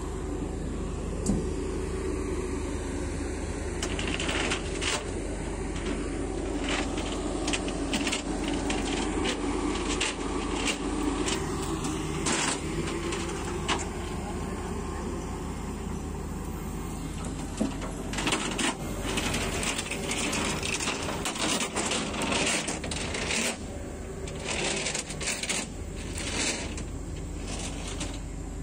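A diesel engine idling steadily, with scattered sharp metallic clicks and clanks over it. The clanks come thickest in the second half.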